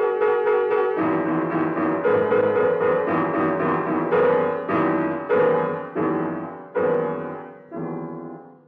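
Piano tone clusters struck percussively in an improvisation: a quick run of repeated chord-clusters, then separate heavy strikes coming further and further apart, the last one ringing away near the end.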